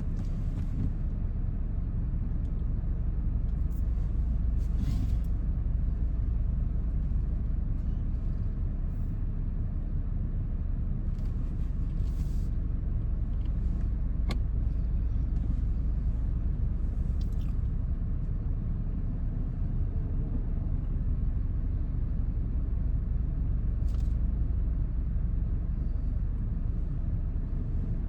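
Steady low rumble of a vehicle's engine and road noise, with a few faint, brief clicks.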